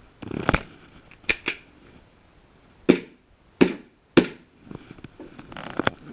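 Airsoft gun firing single shots: about seven sharp pops spaced irregularly, the loudest three coming about half a second apart near the middle.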